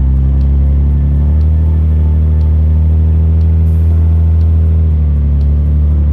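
Nissan Skyline R34's naturally aspirated RB20DE straight-six engine running at steady revs, a loud, even low drone.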